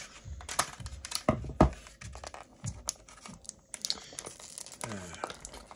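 Clear plastic blister packaging crinkling and crackling as it is bent and pulled to free a toy rifle accessory, in irregular sharp cracks, the loudest about a second and a half in.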